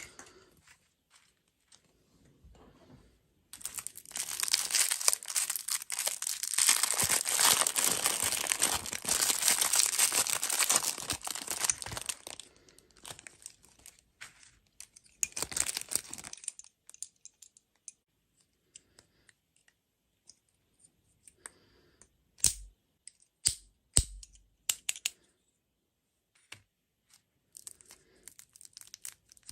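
Plastic snack wrapper being torn open and crinkled for about twelve seconds, loudest in the first half, then a few sharp clicks or taps near the end.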